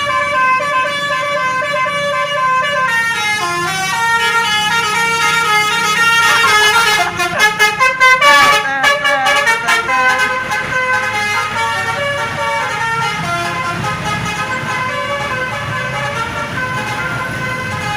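Bus 'telolet' horn: a multi-tone musical air horn playing a stepping melody of held notes, breaking into a run of short rapid blasts near the middle.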